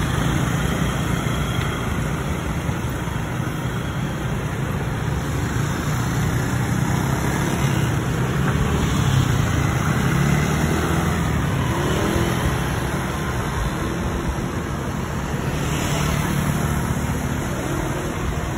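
Road traffic noise from passing cars and motor scooters, a steady low rumble with no single event standing out, heard from a bicycle riding alongside.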